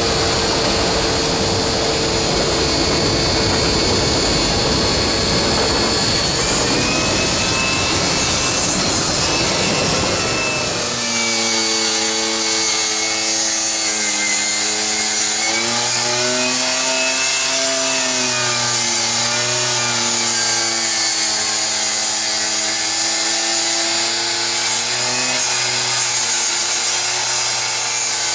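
Handheld electric angle grinder running against a caboose's metal roof, grinding the old surface. For about the first ten seconds it is a dense, rough noise. Then it turns into a steady motor whine whose pitch wavers up and down as the grinder is worked over the roof.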